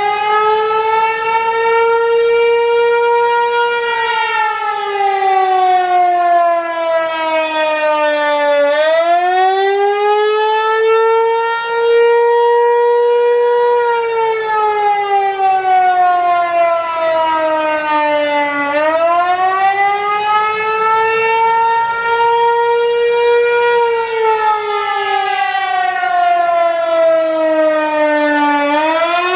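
Federal Signal Equinox outdoor warning siren sounding its attack signal for a monthly test: a loud wavering tone that rises over about two seconds, holds briefly, then slides slowly down, repeating about every ten seconds, three times.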